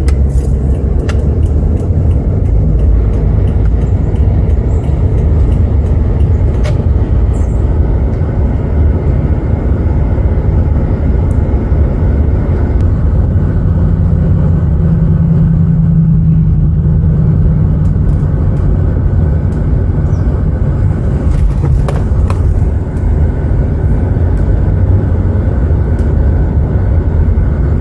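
Car driving with the top down: steady, loud low rumble of wind and road noise, with the engine's hum standing out briefly about halfway through.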